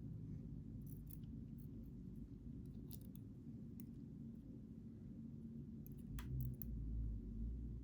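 A few faint, sharp clicks of small metal lock parts being handled, pins and components of a pin-tumbler lock, over a low steady hum, with a duller handling rumble about six seconds in.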